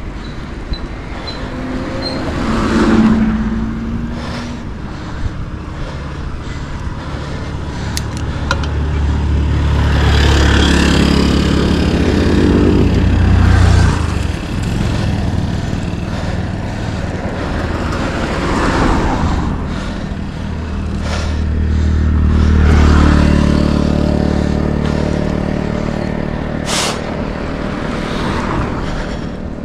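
Motor vehicles passing on the hill road, their engines swelling up and fading away, twice most strongly: about ten to fourteen seconds in and again around twenty-three seconds.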